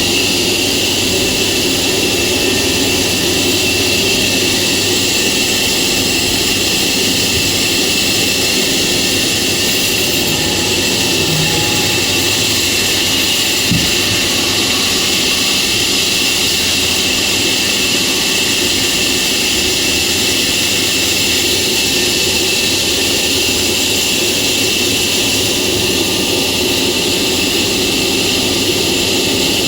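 Sawmill machinery running steadily: a constant loud, high hiss and whir that does not change, with one short knock about halfway through.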